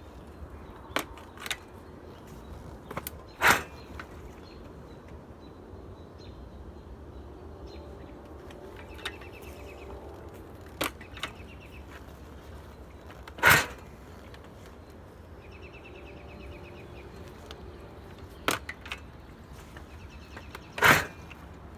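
Kick-start attempts on a 1983 Yamaha PW80 two-stroke dirt bike: three loud thumps several seconds apart, with lighter clicks between them. The engine never fires, which the owner puts down to no fuel getting into the cylinder from a badly fouled carburettor.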